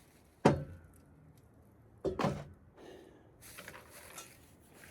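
Two dull thumps about a second and a half apart, the first a single sharp knock with a short ring, the second a quick double knock.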